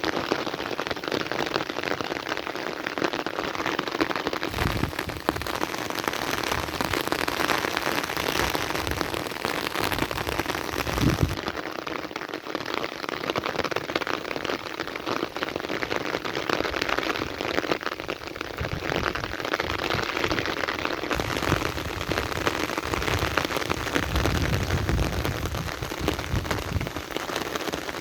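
Heavy rain falling steadily on a surface, a dense hiss of countless drops. Low rumbles of distant thunder swell up now and then, most strongly in the last third.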